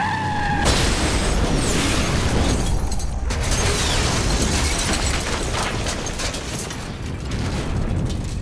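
A short high squeal, then less than a second in a loud explosion that goes on as a long, dense roar of fire and blast.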